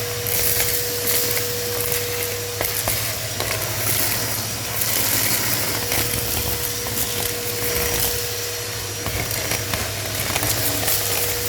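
Electric vacuum cleaner running steadily as it sucks up dust and feathers from a floor. It gives a constant hum with a higher whine that comes and goes, and scattered small ticks of debris.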